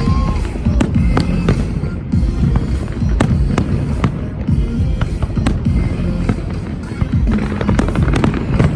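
Fireworks bursting in quick succession, a run of sharp bangs and crackles, over loud music.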